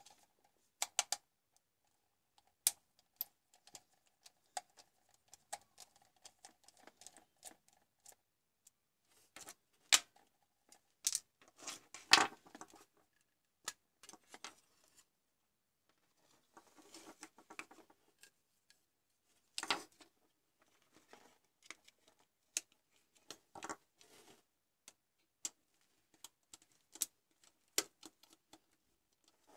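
Close-up handling of a plastic computer mouse being taken apart with a small screwdriver: scattered clicks, taps and scrapes of plastic and metal. A faint thin squeak runs through the first several seconds while the bottom screw is turned. The loudest clicks and a crack come around ten to twelve seconds in, as the shell is pried apart.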